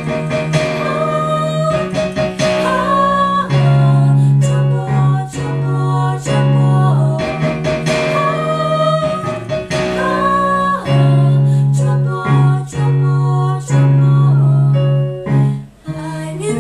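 Two women singing a pop song together over chords played on a Roland RD-150 digital piano. The chords change every second or two under the moving vocal line, with a short break near the end.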